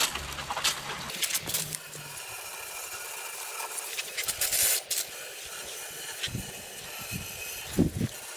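Hand-pump pressure sprayer hissing in bursts as its jet of liquid hits an aluminium intake manifold and the plastic tray under it, loudest about four and a half seconds in, with a few low knocks near the end.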